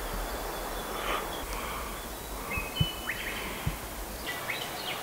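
Forest ambience: small birds calling with short, high whistled notes over a steady outdoor hiss. There are a couple of soft thuds of footsteps on the forest floor.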